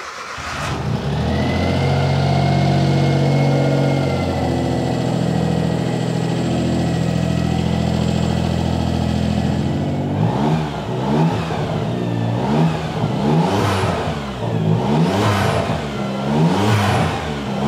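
Suzuki Cappuccino's F6A 660cc three-cylinder turbo engine running, idling steadily, then from about ten seconds in revved over and over, roughly one blip every second and a half.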